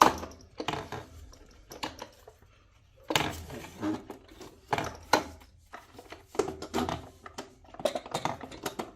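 Hard plastic clicks, knocks and rattles as an OKP Life K2 robot vacuum and its docking station are handled and set in place, with a sharp knock right at the start and a short lull about two seconds in.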